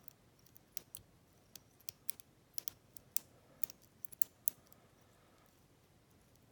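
Lock pick and tension wrench working the pin stack of a 25mm brass padlock: a run of sharp, irregularly spaced clicks as the pins are raked and set, thinning out after about four and a half seconds.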